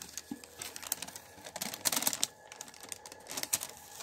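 Tissue wrapping paper crinkling and rustling as it is handled and pulled back inside a cardboard shoebox, with a dense flurry of crackles about halfway through.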